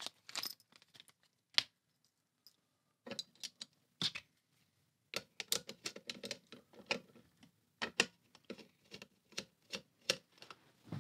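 Small screws being driven by hand with a screwdriver into a Chugger pump's motor housing: a few scattered clicks at first, then a quick, uneven run of small clicks and taps from about five seconds in as the screwdriver turns.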